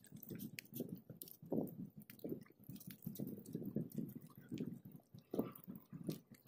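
Soft, irregular chewing and eating sounds of people eating rice and fish by hand, with small clicks and rustles.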